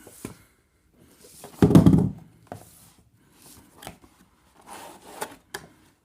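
Packaging and accessories being handled: rustling, scraping and a few sharp clicks, with a heavier thump about one and a half seconds in.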